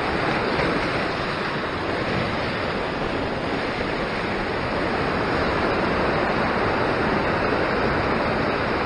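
Ocean surf surging and foaming over a rock ledge: a steady rushing wash of water.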